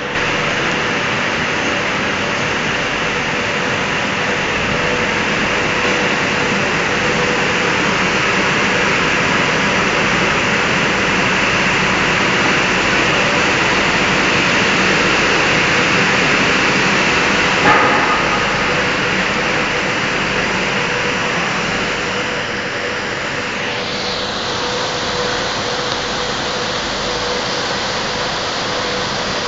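Automatic printing machine with its conveyor dryer running: a steady, loud whirring hiss with a faint hum underneath. There is a single short click about 18 seconds in, and the higher hiss eases a little a few seconds later.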